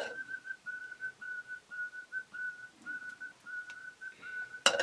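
A steady high whistle at one unchanging pitch, which breaks into short pulses about half a second in. It fits steam escaping from a lidded pot on the wood fire. A sharp metallic clatter comes near the end.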